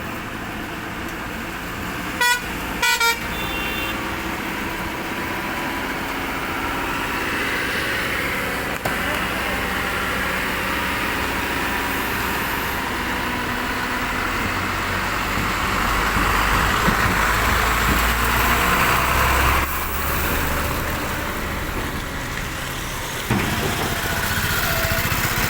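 Excavator's diesel engine running, with a few short horn toots about two seconds in. The engine grows louder for several seconds in the second half, as if working under load, then drops back.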